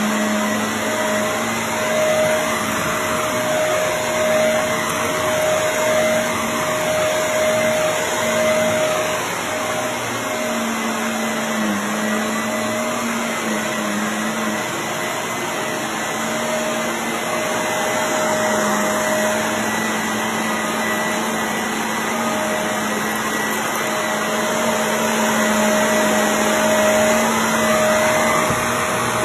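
Shark Navigator upright vacuum cleaner running steadily on carpet, its motor hum swelling and easing every couple of seconds.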